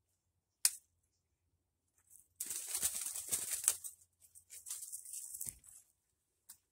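A single sharp click, then a spell of crackling rustle lasting about a second and a half, followed by a shorter, weaker rustle.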